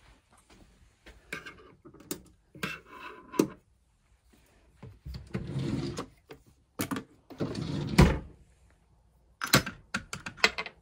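Handling noises in a small room: a run of knocks, clicks and rustles as things are moved about, with the loudest thump about eight seconds in and a quick cluster of clicks near the end.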